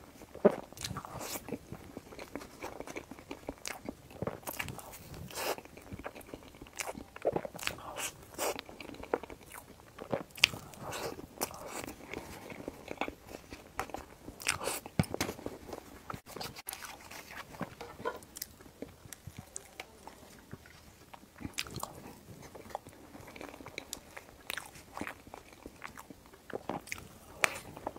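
Close-miked eating sounds: chewing and mouth smacks on a mille-crêpe cake with salted-egg-yolk cream and crispy pork floss, with irregular sharp crunches throughout.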